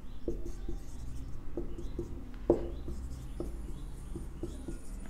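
Marker pen writing on a whiteboard: a run of short squeaks and scratches as each letter is stroked out, the sharpest squeak about two and a half seconds in.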